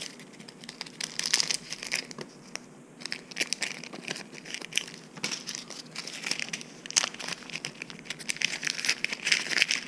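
Crinkling and rustling of a small plastic packet of fishing tackle being handled and picked at with the fingers, with irregular small clicks and crackles.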